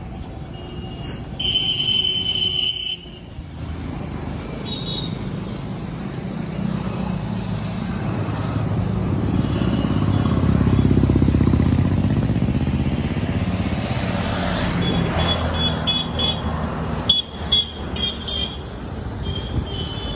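Road traffic: a vehicle's low rumble swells to a peak about halfway through and then eases off. There is a short, steady, high-pitched toot about two seconds in, and a few brief high tones and clicks near the end.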